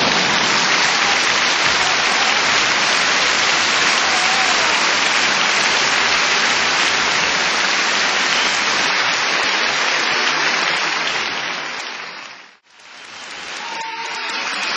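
An audience applauding steadily in a hall. The applause fades away about twelve seconds in, then fades back up.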